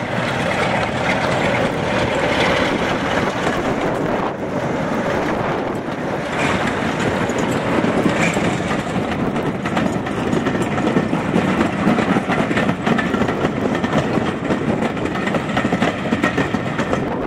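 Class 47 diesel locomotive's engine running as it hauls a train of coaches past, then the coaches' wheels rolling along the rails, a steady loud rumble.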